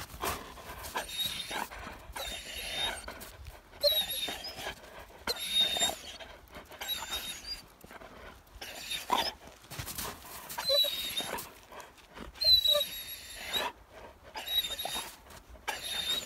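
Flat-coated retriever calling over and over in short, high-pitched whines and yelps, about a dozen in all, demanding that a snowball be thrown.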